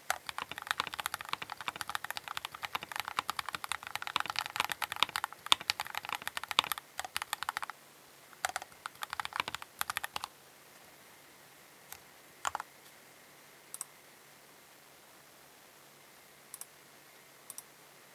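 Keychron K8 Pro mechanical keyboard being typed on: fast, continuous key clacks for the first seven or so seconds, then a few short bursts of keystrokes, then only scattered single key presses.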